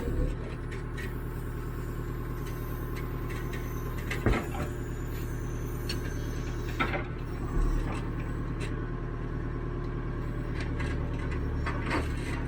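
Caterpillar 428E backhoe loader's diesel engine running steadily while digging, with a few short sharp knocks: one about four seconds in, another a couple of seconds later, and one near the end.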